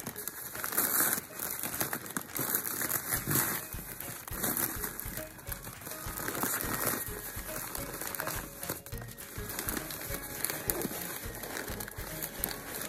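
Newspaper crinkling and rustling as it is handled and pulled off a potted plant, in irregular bursts of crumpling.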